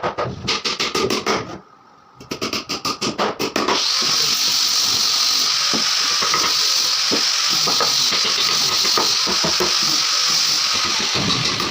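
Two runs of rapid clicking or tapping, then a power tool running steadily for several seconds with a hissing high-pitched noise.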